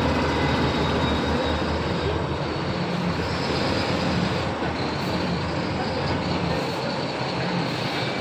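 Diesel lorry engines idling, a steady low engine hum with dense mechanical noise.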